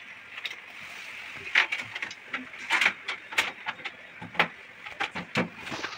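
Scattered clicks and light knocks of hands working the plastic fittings and tubing of an RO water purifier's pre-filter housing, over a steady hiss.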